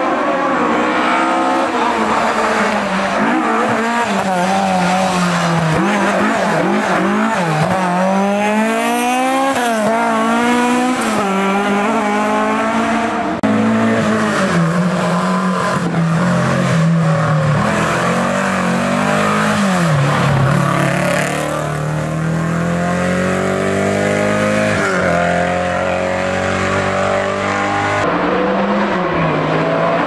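Historic rally car engines running at high revs on a closed special stage, the pitch climbing under acceleration and dropping at each gear change or lift for a bend.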